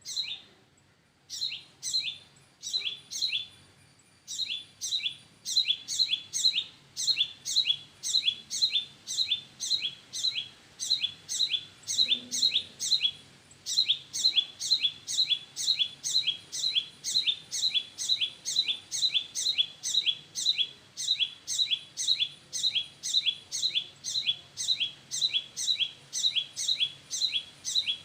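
Small bird chirping over and over: short, sharp chirps that drop in pitch, a few spaced ones at first, then a steady run of about two to three a second, broken by one brief pause about halfway through.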